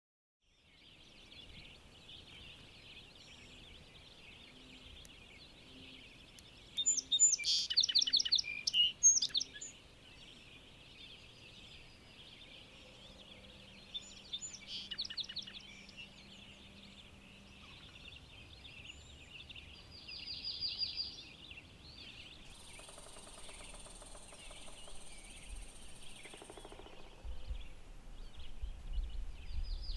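Wild songbirds singing over a steady high-pitched background chorus. The loudest burst of rapid song comes about seven to nine seconds in, with shorter phrases later on.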